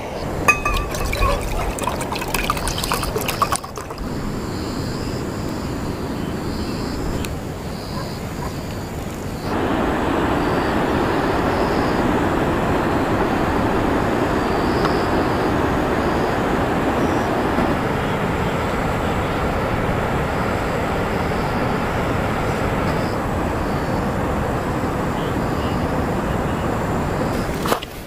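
Water poured from a bottle into a steel camping mug, with splashing and light clinks, followed by a steady rushing noise that steps louder about ten seconds in and holds even to the end.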